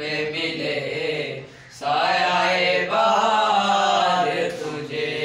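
Boys' voices singing an Urdu song unaccompanied, together in unison, on long wavering held notes, with a short breath pause about one and a half seconds in.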